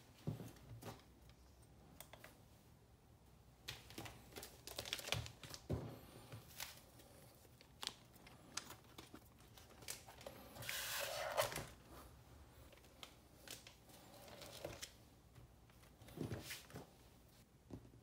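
Handling noise from an Ableton Push 2 controller being taken apart: light clicks and knocks of plastic and circuit board on the bench. About ten seconds in comes the loudest sound, a rustling, tearing scrape of about a second as the circuit board is lifted away from the pad sheet and foam.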